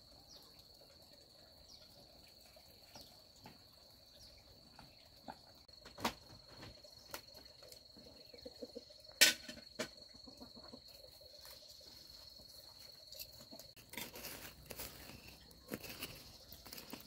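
Steady high-pitched insect drone, like crickets, with scattered knocks, one sharp snap about nine seconds in, and rustling near the end.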